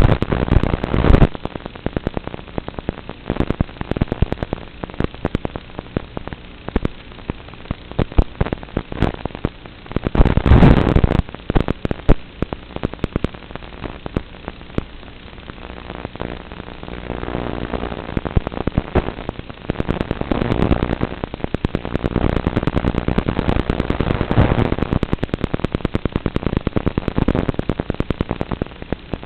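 Crackling radio static from an analog FPV video receiver's audio channel: a steady run of clicks and hiss, with louder bursts of crackle about ten seconds in and again later as the signal breaks up.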